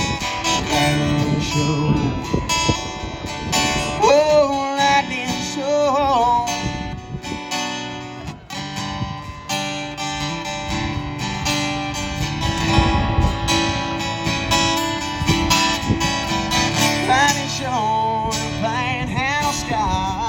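Live country band playing an instrumental break with strummed acoustic guitar. A lead melody with bent notes comes in twice, about four seconds in and again near the end.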